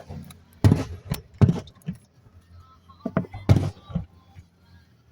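A handful of sharp bangs and knocks, each dying away quickly, in two groups: three in the first second and a half, then two more a couple of seconds later.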